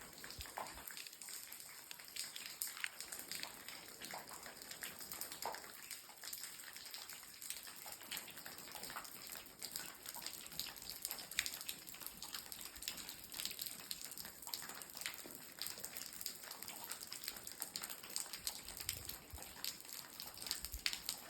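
Water dripping off a rock cave overhang in the rain: many separate drops splashing irregularly, over a steady hiss of rainfall.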